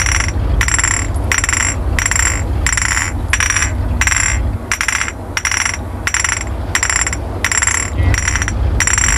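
Three empty glass bottles, each slipped over a finger, clinked together in a steady rhythm of about two clinks a second, each clink ringing briefly. A low steady rumble runs underneath.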